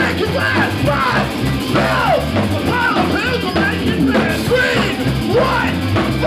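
Live punk rock band playing loud, with a drum kit driving the song.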